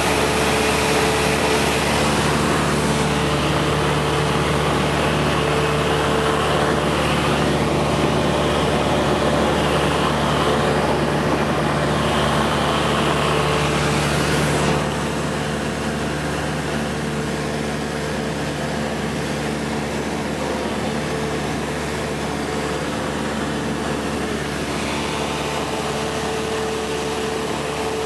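Cessna 172 Skyhawk II's four-cylinder piston engine and two-blade propeller droning steadily in flight, heard from inside the cabin. The level drops a little about halfway through, then holds steady.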